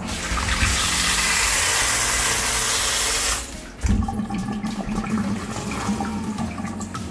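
Water rushing back down the discharge pipe into the sump pit once the pump stops. It rushes loudly for about three and a half seconds and cuts off suddenly, followed by a thump and quieter gurgling. This backflow refills the pit and makes the pump run again every 5 to 10 minutes.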